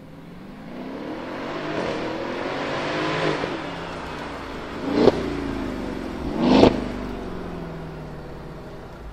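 Mercedes ML63 AMG twin-turbo V8 through a Capristo valved exhaust: revs rise as it pulls away over the first three seconds. It then gives two short, sharp throttle blips about a second and a half apart, the second the loudest, and fades as it eases off.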